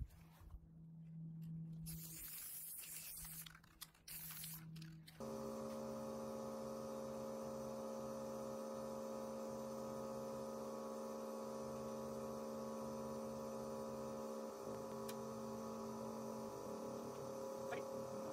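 A few seconds of irregular rustling and scraping noise, then an abrupt switch to a steady electrical hum made of several fixed tones, with a faint click or two near the end.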